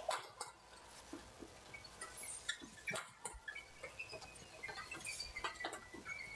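Badminton doubles rally: the shuttlecock is struck back and forth by rackets in sharp, irregular clicks, mixed with short squeaks of players' shoes on the court floor.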